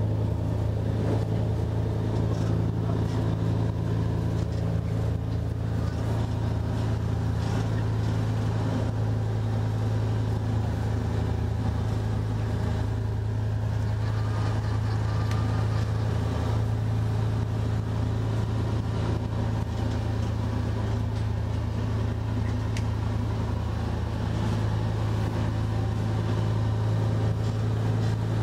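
Fishing boat's engine running steadily under way, a constant low drone, with the wash of choppy sea against the hull.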